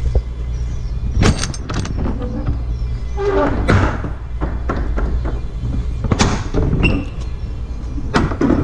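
Rear box-van doors being unlatched and swung open: several sharp metallic clacks and clunks from the locking-bar handles and latches, with a rattle as a door is pulled open, over a steady low rumble.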